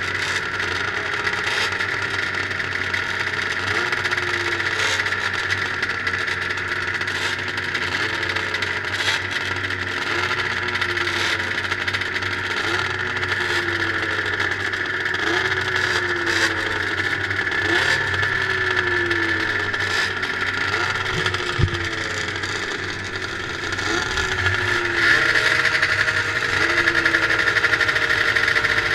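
Two-stroke 440 liquid-cooled race snowmobile engines idling, one blipped about once a second, its pitch jumping up and falling back each time. Near the end the engine note steps up and holds higher and louder.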